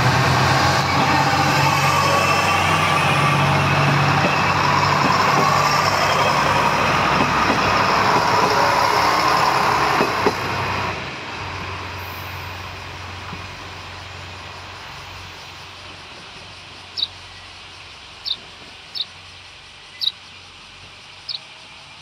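Two coupled diesel railcars, a JR Shikoku 1000 series and a Tosa Kuroshio Railway 9640 series, pulling away: engines running and wheels clicking over rail joints, loud for about ten seconds, then fading steadily as the train draws off. Five short high chirps near the end.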